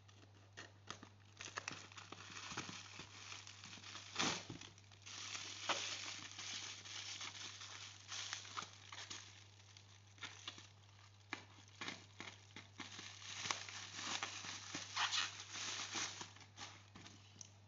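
Packaging of a new iPhone 12 being handled and unwrapped: plastic wrap and paper crinkling and tearing in irregular stretches, with scattered taps and clicks, over a steady hum.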